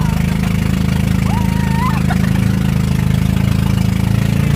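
Engine of a motorized outrigger boat under way, running with a steady low drone. A short high-pitched voice call rises and falls about a second in.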